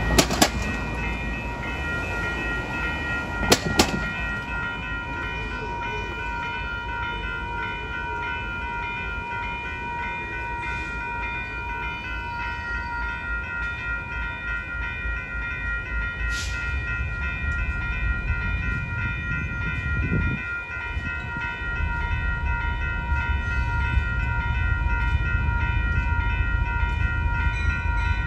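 Level-crossing warning bell ringing steadily while a diesel locomotive approaches, its low engine rumble growing louder toward the end. Two sharp clicks sound in the first few seconds.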